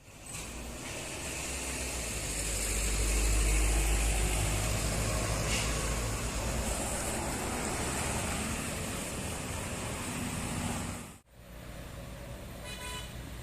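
A large tour bus's diesel engine working up a steep climb as it passes close by, a deep rumble with road noise that swells a few seconds in and then eases. It breaks off abruptly about eleven seconds in, and quieter traffic noise follows.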